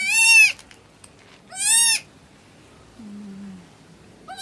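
Newborn goat kids bleating: two high, thin calls, one at the start and one just under two seconds in, with a short low sound about three seconds in.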